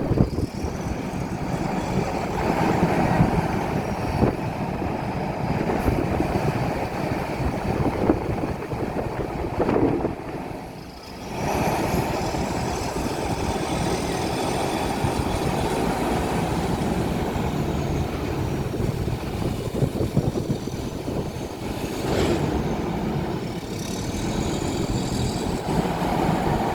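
Sany excavator running, a steady engine noise with a few sharp knocks and faint high whines that rise and fall. The noise drops briefly about eleven seconds in, then comes back.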